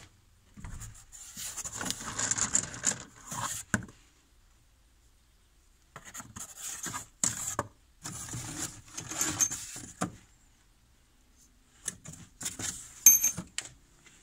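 Rubbing and rustling with small clicks, in three bursts a few seconds long, with quiet between them and the sharpest click near the end.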